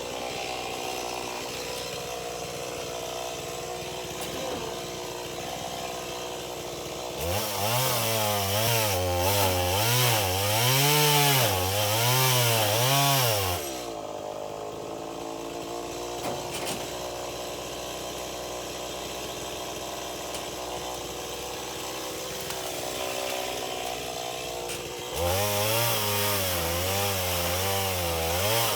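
Two-stroke chainsaw idling, then throttled up into the tree trunk for about six seconds, its pitch rising and falling as it bogs and recovers under load. It drops back to idle, then is throttled up into the cut again near the end.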